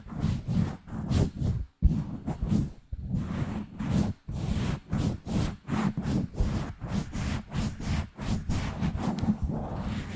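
Fingers scratching and rubbing directly on a microphone, short strokes about two to three a second with a few brief pauses, each carrying a heavy low rumble.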